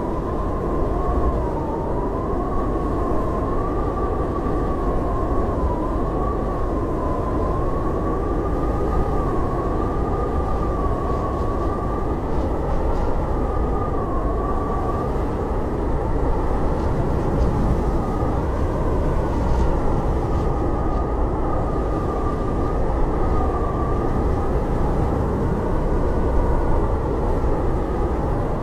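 Blizzard wind howling steadily: a thick, constant rush of noise with a whistling tone that wavers slowly up and down in pitch.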